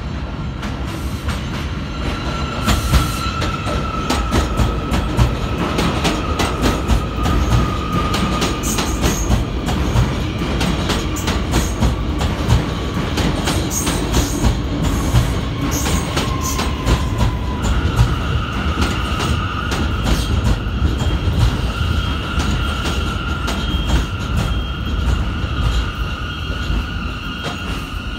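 R179 subway train pulling into an elevated station, its wheels clacking over the rail joints, with a high whine that slowly falls in pitch. About two-thirds of the way through, a steadier, higher whine takes over.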